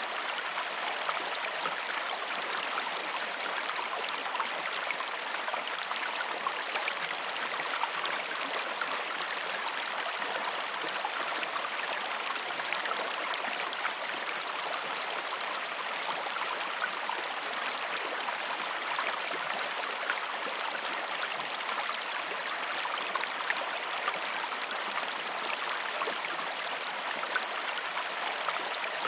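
A river flowing steadily over rocks, a continuous burbling wash of water with small splashes and trickles.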